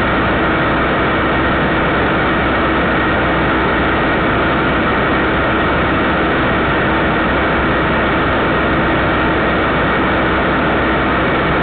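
Steady hiss with a constant hum, unchanging throughout: background noise on a security camera's audio feed.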